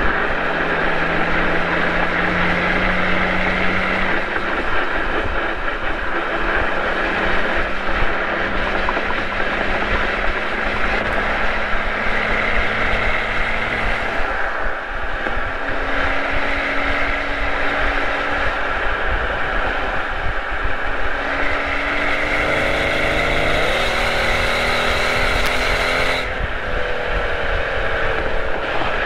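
Mercedes-Benz SL65 AMG twin-turbo V12 running at highway speed, heard from inside the cabin over steady road and wind noise. The engine note rises in steps through the second half, climbing steeply as the car accelerates about three quarters through, then falls back a little near the end.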